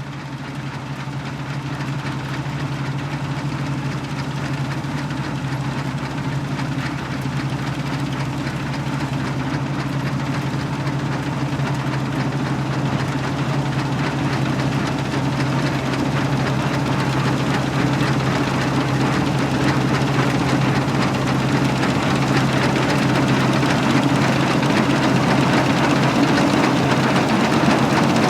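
Fortschritt E514 combine harvester working in a crop: its 6.6-litre four-cylinder diesel running steadily under load, with the threshing drum, header and straw walkers adding a broad mechanical clatter. It grows slowly louder throughout.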